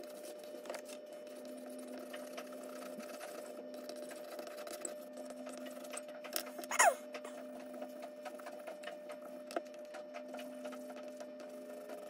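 Charcoal pencil scratching busily on drawing paper, a fast run of rasping strokes over a steady low hum. About halfway through, one short, louder squeak falls steeply in pitch.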